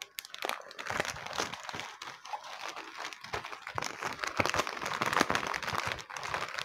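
Plastic packaging wrapper crinkling and rustling as it is handled and pulled open by hand. It makes a dense, irregular crackle that is loudest about five seconds in.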